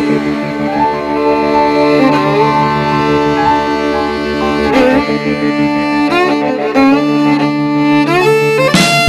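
Music: a melody of long held notes that slide from pitch to pitch over a steady sustained low chord.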